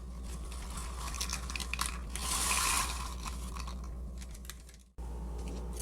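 Kitchen handling sounds: scattered light clicks and clinks, with a brief rustle about two seconds in, over a steady low hum. The sound cuts off abruptly near the end, then resumes.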